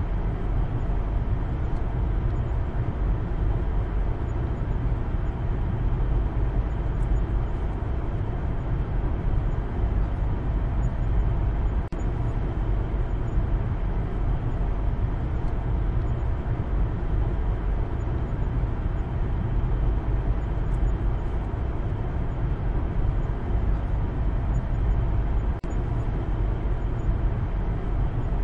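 Steady low road and engine rumble heard from inside the cabin of a Maruti Suzuki Baleno being driven.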